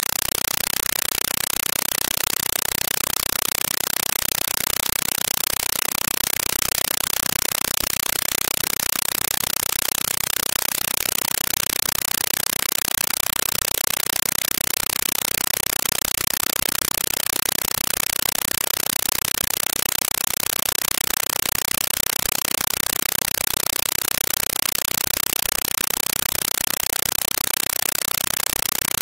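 Steady, even hiss with no distinct sounds in it: recording noise. The distant vehicles' engines are not heard.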